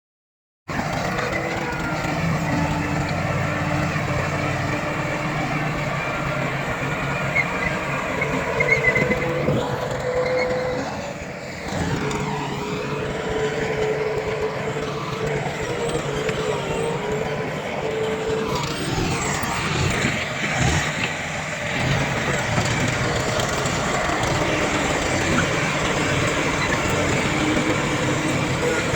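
Heavy diesel earthmoving machinery, a bulldozer and dump trucks, running and working, with engine tones that shift in pitch now and then. The sound cuts out for a split second at the very start.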